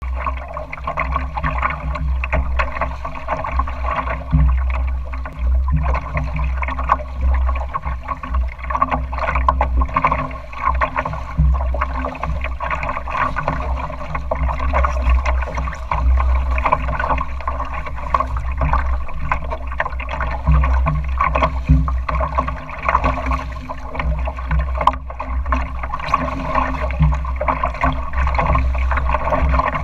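Water splashing and gurgling against the hull of a small Northeaster Dory sailboat as it moves through choppy water, with a steady low rumble underneath.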